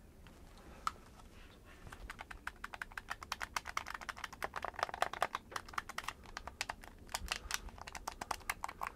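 Plastic buttons and triggers of a repaired Xbox One controller clicking rapidly as they are pressed in quick succession to test it, a single click about a second in, then steady rapid clicking from about two seconds in.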